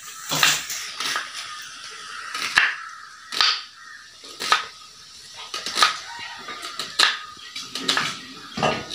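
Kitchen knife chopping an onion on a wooden cutting board: sharp knocks of the blade on the board, unevenly spaced at roughly one a second.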